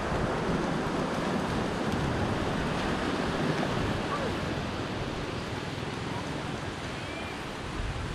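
A steady rushing noise with no rhythm or clear pitch.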